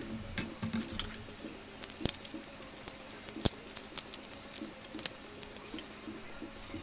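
Small clicks and taps of handling the phone's parts and tools during reassembly, scattered irregularly, with two sharper clicks about two and three and a half seconds in. A faint wavering warble runs underneath.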